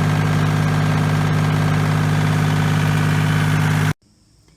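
1989 Kubota L2550 tractor's three-cylinder diesel engine running steadily, its alternator now charging through a repaired fusible link; the sound cuts off abruptly about four seconds in.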